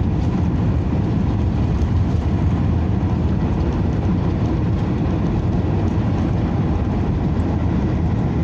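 Airbus A321neo cabin noise heard from a window seat: a steady, loud, low rumble of engines and airflow.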